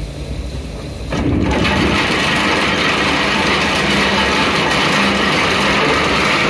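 Anchor chain rattling steadily over the anchor windlass and through the chain pipe in the deck, starting suddenly about a second in. A lower steady engine hum runs beneath it.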